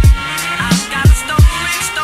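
Background music with a heavy beat: deep kick drum hits that slide down in pitch, at the start and twice more about a second in, under steady synth tones.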